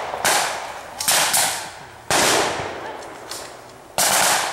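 Rifles firing blanks in single, irregularly spaced shots, about five loud ones and one fainter. Each shot echoes off for half a second or more.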